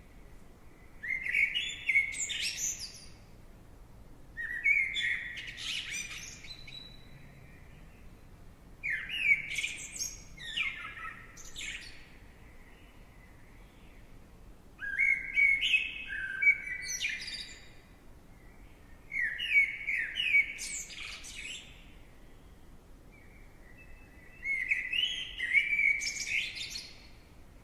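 A songbird singing the same short phrase of quick, high chirps over and over, six times, with pauses of a couple of seconds between phrases.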